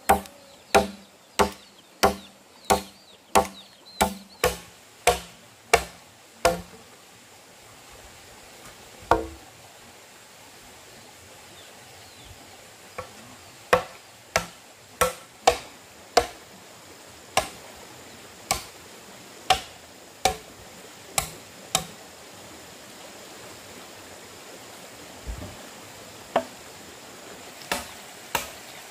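Repeated chopping with a blade: sharp single strikes about 0.7 s apart. A quick run of about ten opens it, then a pause broken by one stroke, then a longer, less even run, then a few more strokes near the end.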